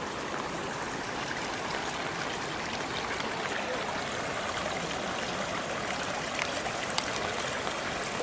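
Steady rush of flowing water from a creek running high with floodwater after a tropical storm.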